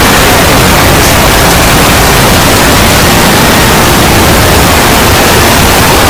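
Heavily distorted, clipped wall of noise at near full loudness: an ear-rape style meme sound effect, steady and unbroken, with faint traces of buried tones under the hiss.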